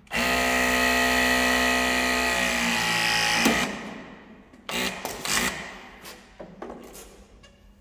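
Battery-powered hydraulic cable tool running under load on a cable core: a steady motor whine whose pitch sags as the jaws build pressure, then stops with a sharp click about three and a half seconds in. A few handling knocks follow.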